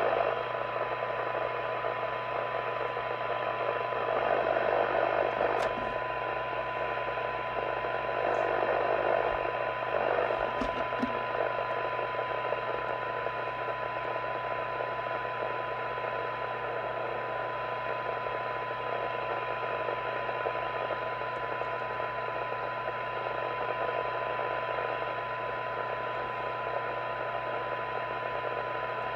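Harrier CBHQ CB base station receiver's audio output on a weak test signal: a steady 1 kHz test tone buried in receiver hiss. The hiss swells and eases a couple of times as the receive coils are tuned for best sensitivity.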